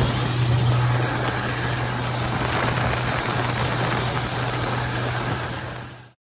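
Combine harvester running steadily, a constant low engine hum under broad machine noise, fading out quickly near the end.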